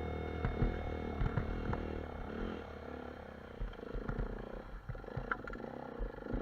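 Motorcycle engine running at low revs, with scattered knocks and clatter.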